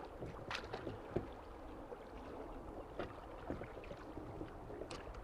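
River water moving around a drifting boat, a steady wash with a few light knocks scattered through it.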